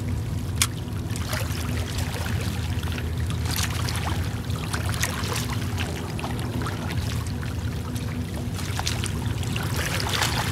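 Steady low drone of a boat engine out on the water, with small waves lapping and trickling against the shore rocks.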